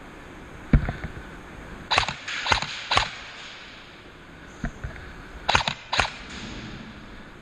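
Airsoft guns firing scattered single shots in an indoor close-quarters field: sharp cracks about a second in, three more around two to three seconds in, and another cluster near six seconds, over a low steady background.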